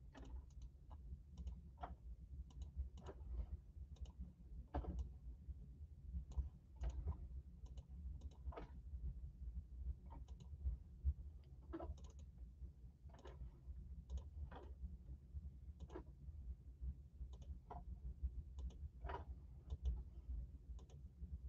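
Computer mouse button clicking, single clicks at uneven intervals over a faint low hum.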